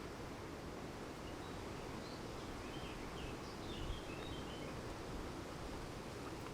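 Steady noise of wind and rain, with wind rumbling on the microphone. A few faint, short bird chirps come in between about one and four and a half seconds in.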